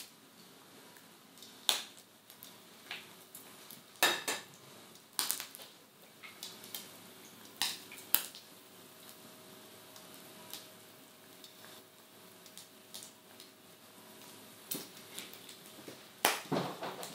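Eggs being cracked and separated by hand over a glass bowl: scattered sharp taps and clinks of shell on the bowl, a quick cluster of them near the end, over the faint sizzle of bacon frying in a pan.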